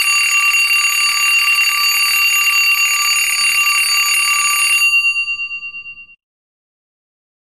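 Alarm clock bell ringing with a fast, loud metallic trill. It stops about five seconds in, rings away over about a second, and then there is dead silence.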